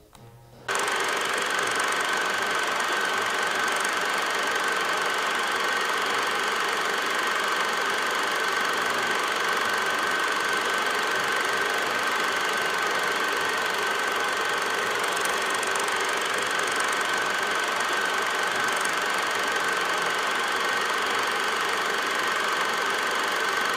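A steady mechanical running noise, like a small machine whirring without pause, with a constant high hum on top. It starts abruptly about a second in.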